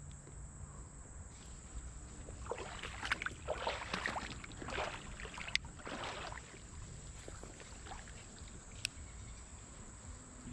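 Creek water splashing and sloshing in several short bursts through the middle, with a couple of sharp clicks, over a steady high-pitched insect drone.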